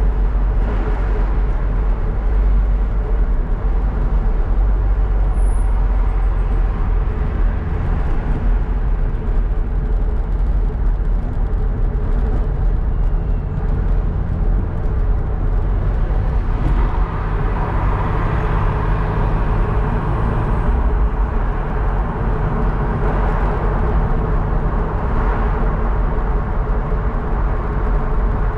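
Car driving at about 50–60 km/h, heard from inside the cabin: a steady low rumble of engine and tyre noise, with more road noise in the second half as the car picks up speed.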